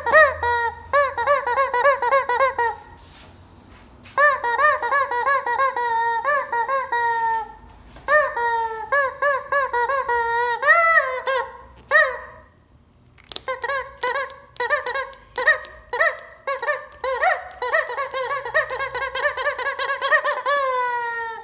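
Rubber squeaky chicken toy squeezed over and over, giving quick runs of short honking squawks, each one dipping in pitch. Two breaks of about a second interrupt the runs, and the last few squawks are drawn out longer.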